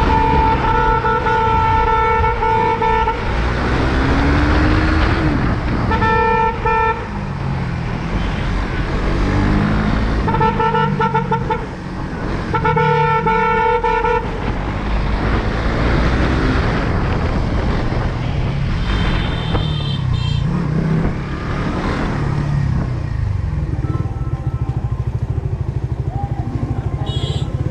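Motorcycle engine running through town traffic, with a vehicle horn sounding in several long, steady blasts during the first half (four held toots). Shorter high-pitched beeps come around the middle.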